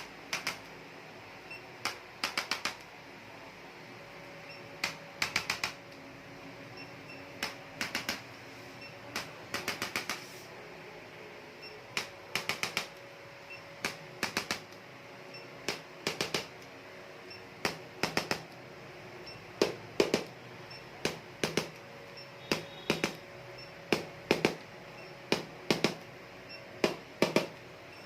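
Hands striking a body during massage: bursts of two to five quick slaps or taps, one burst every second or two, each stroke sharp and brief.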